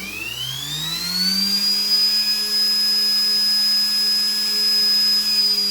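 3D-printed axial-flux brushless DC motor spinning up with a rising whine. The whine levels off into a steady high pitch at full speed, then starts to drop near the end as the motor slows.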